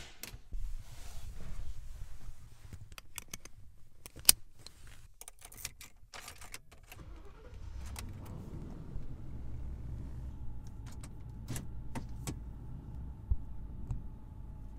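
Getting into a 1994 Lincoln Town Car: the door handle and latch click, a loud knock comes about four seconds in, and keys jingle with more clicks. Then, about seven or eight seconds in, the 4.6-litre V8 starts and settles into a low, steady idle.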